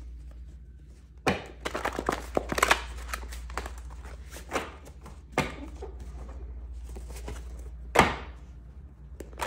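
Tarot message cards being shuffled and laid on a table: a quick run of light clacks and taps, then a few separate knocks as cards are set down, the loudest near the end, over a steady low hum.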